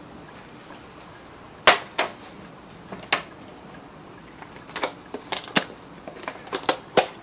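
Sharp clicks and taps of hard kitchen utensils and containers being handled. A few come spaced out, the first the loudest, then a quicker run of them in the second half.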